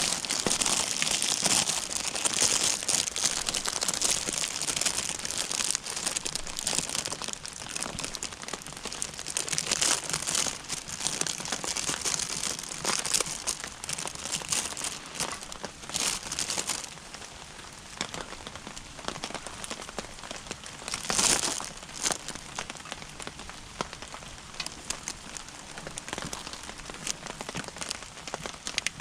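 Plastic bread wrapper crinkling as it is opened and handled, over a wood fire crackling in a small cooking stove. The crinkling is loudest in the first half; after that the quieter crackle of the fire carries on.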